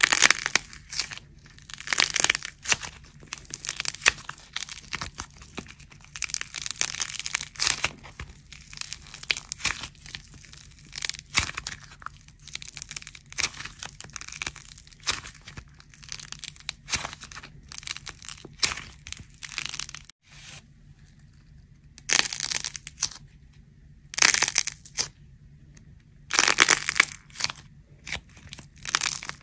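Dried plaster clay crackling and crunching as fingers squeeze, crack and peel its coating away, in irregular bursts with short pauses between them.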